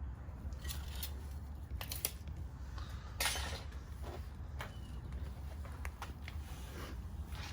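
Light metallic clicks and clinks, with a short scraping rush about three seconds in, over a low steady rumble.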